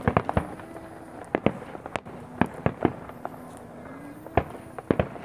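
Aerial fireworks shells bursting: a dozen or so sharp bangs coming irregularly, several in quick clusters, with short gaps between.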